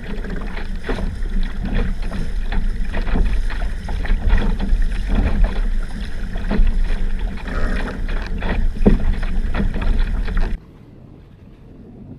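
Wind buffeting the microphone over the rush and slap of water against the fibreglass hull of a small racing dinghy under sail. About ten seconds in it cuts off suddenly to a much quieter, faint rush of water.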